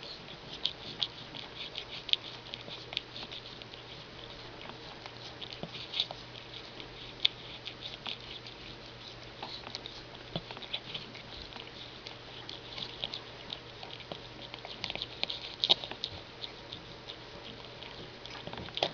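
Newborn Sphynx kittens squeaking: many short, irregular high-pitched peeps, with soft ticking and rustling among them.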